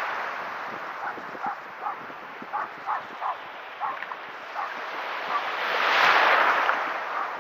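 Shallow sea waves washing in over sand at the water's edge, swelling to a loud rush about six seconds in as a wave breaks right beside the microphone. A run of short, sharp calls sounds in the background between about one and five seconds in.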